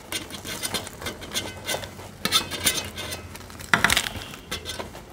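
Crispy deep-fried puris being torn and broken open by hand: an irregular run of crackles and crunches, with louder clusters about halfway through and near the end.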